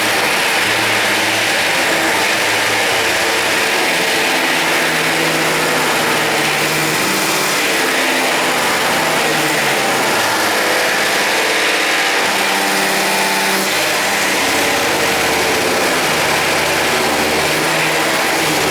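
Power drill running continuously under load, its pitch wavering as the bit reams out the wood around the door's strike-plate opening, then stopping abruptly at the end.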